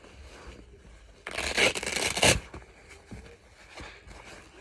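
Knee pads being handled: a loud ripping, rasping sound lasting about a second, with quieter rustling and rubbing before and after.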